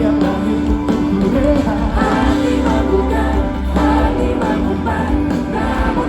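Live band playing a pop-rock song at concert volume, with a lead vocal singing over it.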